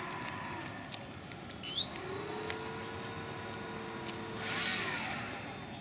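Twin motors and propellers of a radio-controlled Hangar 9 Twin Otter floatplane model running as it taxis on the water: a steady whine that swells briefly near the end.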